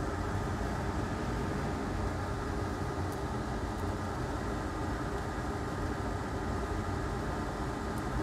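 Steady rushing fan noise at an even level, with a faint steady tone on top and no distinct events.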